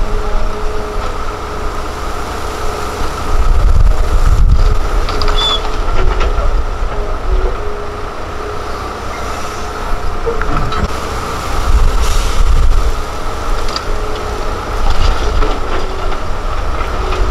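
Hitachi Zaxis 330LC crawler excavator working: its diesel engine and hydraulics run under load as it digs, swings and dumps soil into a dump truck, a steady heavy rumble that swells about four seconds in and again around twelve seconds.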